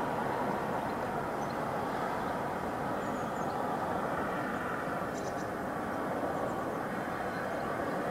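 Steady, even outdoor background roar with no distinct events, and a few faint high chirps about three and five seconds in.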